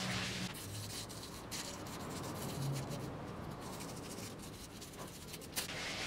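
A small hand tool scraping and rubbing in damp bonsai soil, with scattered light scratches and ticks.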